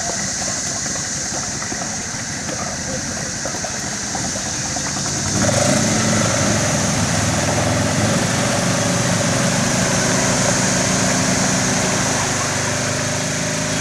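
Engines of an Argo 8x8 amphibious vehicle and a Polaris RZR 900 side-by-side running. About five seconds in they grow louder and settle into a steady, heavier note as they work under load, the Argo dragging the stuck RZR out of the mud.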